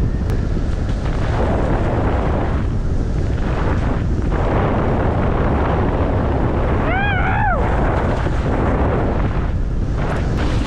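Wind buffeting the microphone of a board-mounted camera on a moving windfoil board: a loud, steady rumbling roar. About seven seconds in, a short high squeak rises and falls twice.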